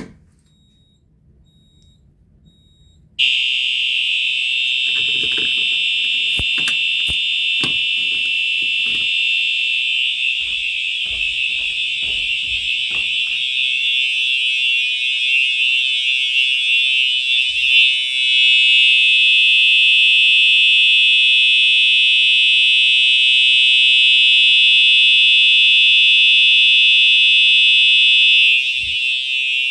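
A home fire alarm system's notification devices go into alarm about three seconds in, set off from a manual pull station during a system test: a loud, steady, high-pitched alarm tone that holds on. Several knocks are heard under it in the first half, and the tone shifts slightly about two-thirds of the way through.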